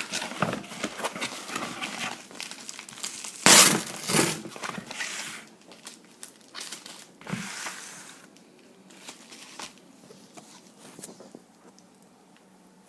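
Packaging crinkling and tearing as a shipping package is worked open by hand, in irregular bursts with sharp crackles; the loudest burst comes about three and a half seconds in. After about eight seconds it thins to scattered small clicks.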